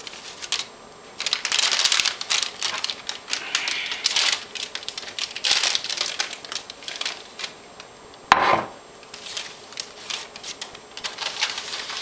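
A plastic bag and cloth crinkling and rustling as proofed bread dough is unwrapped and turned out onto a wooden peel. About eight seconds in, one sharp knock as the bowl is set down on the tiled counter.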